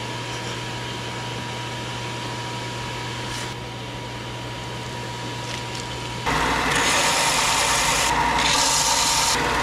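A steady hum with a thin whine, then about six seconds in a belt sander starts grinding, much louder, and runs to the end. The grinding eases twice briefly, as the work is lifted off the belt.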